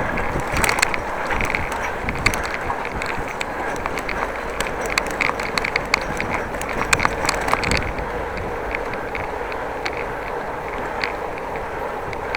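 Bicycle in motion: a steady rush of tyre and wind noise with frequent irregular clicks and ticks from the bike's mechanism, thinning out after about eight seconds.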